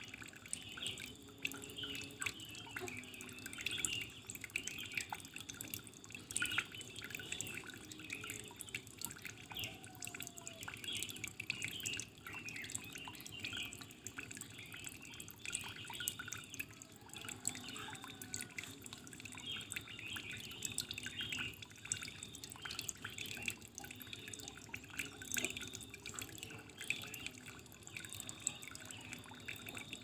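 Running water trickling and splashing: a dense, irregular patter of small dripping plinks over a steady low rush.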